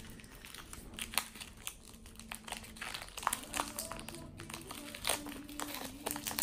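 Foil Pokémon card booster-pack wrapper crinkling in hand as it is opened, in quick irregular sharp crackles.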